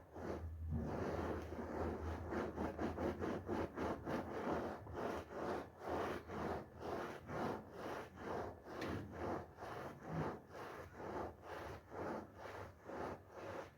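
A soapy wool carpet being scrubbed in quick, even back-and-forth strokes, about two to three a second, working up foam.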